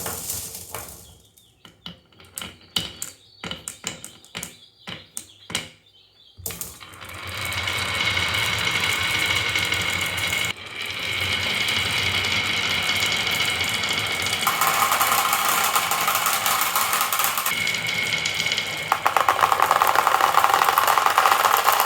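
Marbles on a toy marble run: separate clacks and knocks for the first six seconds or so, then a steady rolling rattle of marbles running along the track, which turns buzzier twice in the second half.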